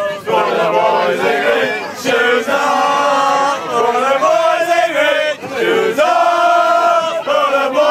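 A group of men singing a loud chant together, with long held notes.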